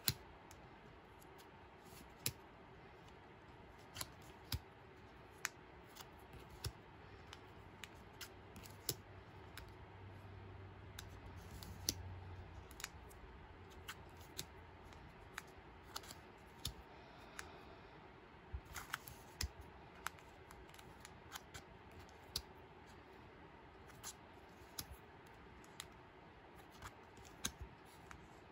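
Plastic-sleeved photocards being flicked off a stack and laid onto another pile one at a time: sharp little plastic clicks and taps at an uneven pace of about one a second, over faint room hiss.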